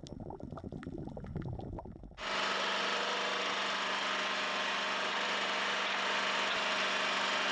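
A low, uneven rumble for about two seconds, then an abrupt change to a boat's engine running steadily: a constant low hum under an even rushing noise of wind and water on the open deck.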